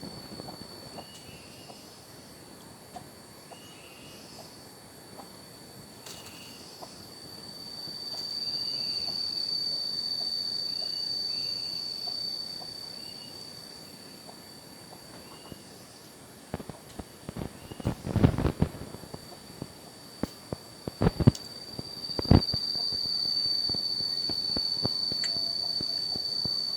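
Insects buzzing in a steady, high, continuous drone that swells louder twice and fades between, with faint repeated chirps under it. In the second half come a scatter of sharp knocks and clatters, the loudest a few seconds apart.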